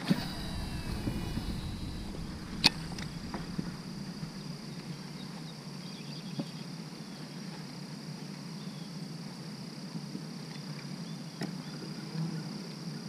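Insects buzzing steadily at a high pitch over a low hum, with one sharp click a little under three seconds in.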